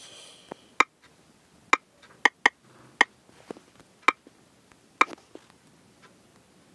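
Irregular sharp clicks of typing on a smartphone's on-screen keyboard, about a dozen taps spaced unevenly, with a brief hiss at the very start.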